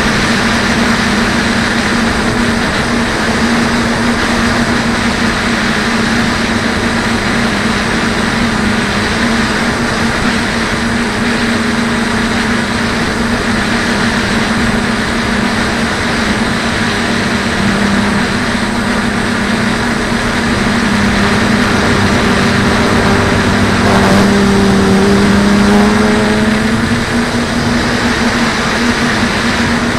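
Multirotor drone (DJI F450 quadcopter) in flight, its brushless motors and propellers humming steadily over a rush of noise. The hum rises a little in pitch and loudness about three quarters of the way through, then settles back.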